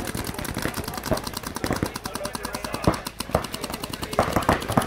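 Paintball markers firing in rapid streams, a dense rattle of many pops a second from several guns at once, with a few louder single shots.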